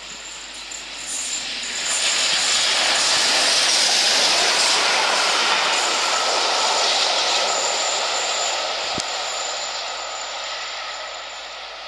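A1 Pacific steam locomotive 60163 Tornado and its support coach passing through the station: a rush of train noise that swells as it comes alongside, stays loud for a few seconds, then fades as it draws away.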